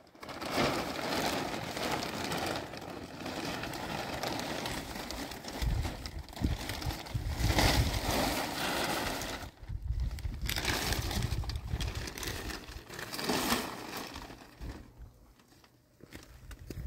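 Large plastic sheet crinkling and rustling as it is handled and spread over a tent, with heavy low rumbling through the middle.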